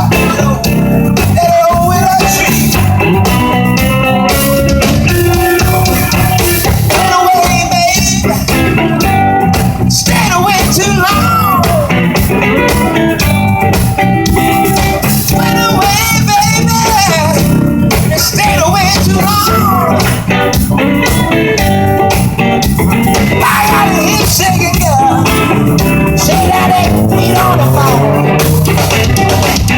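Blues-style music played on electric guitar through an amplifier, with notes that bend and slide over a steady bass line.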